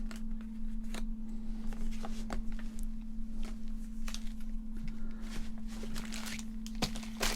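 Pokémon trading cards handled by hand, slid and flipped one behind another, making a scatter of light clicks and rustles over a steady hum. A sharper pair of clicks comes near the end.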